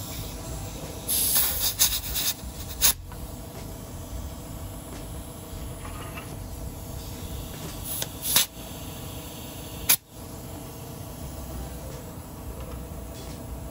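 Air hissing in short bursts from a pocket bike's tyre valve, with a few sharp clicks.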